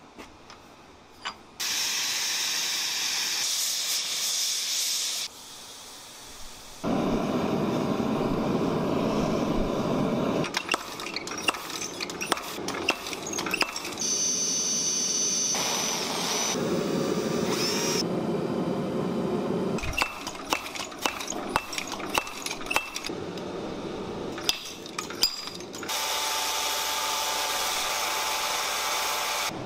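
Blacksmith metalworking sounds in a series of short shots: stretches of steady rushing noise, some deep and loud, broken by quick runs of sharp metallic strikes and clinks. A high steady whine lasts about two seconds midway.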